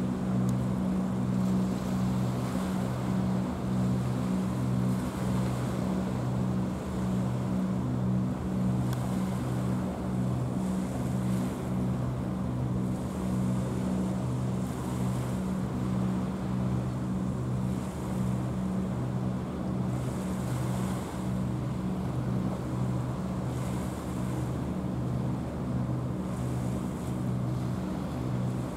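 Container ship's diesel engine droning with a steady low hum that throbs in a regular beat, about twice a second. Wind and the wash of water run underneath it.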